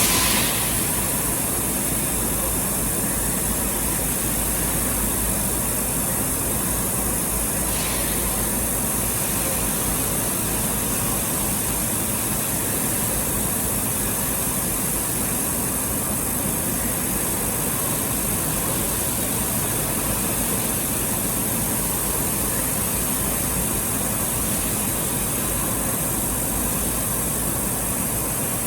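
Steady machine drone with a constant high-pitched hiss.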